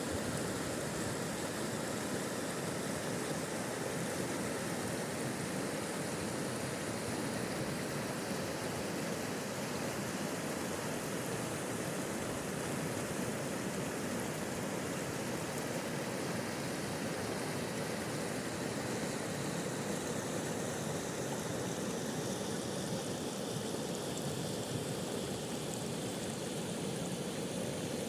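Small river flowing: a steady, unbroken rush of water.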